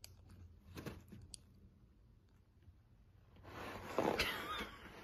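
Kitten pawing and clawing at a roll of paper towels: a few faint taps, then soft paper rustling and crinkling that grows louder in the second half.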